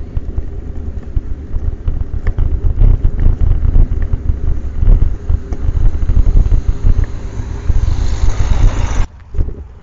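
Loud, gusty wind buffeting an action camera's microphone while cycling, a low rumble with a hiss that builds over the last second before the sound cuts off abruptly near the end.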